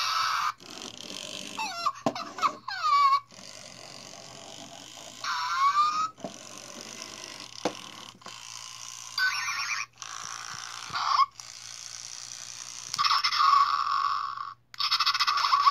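Zhu Zhu Puppies electronic toy dog playing its built-in sound clips through a small tinny speaker. It gives a string of short one- to two-second sounds with brief gaps between them, several sliding up or down in pitch.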